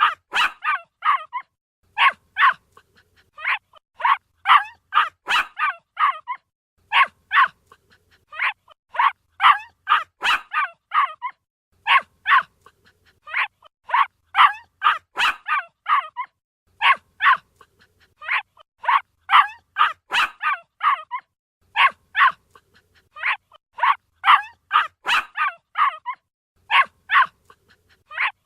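A puppy yapping in quick runs of high-pitched barks, several to a run, with short pauses between runs.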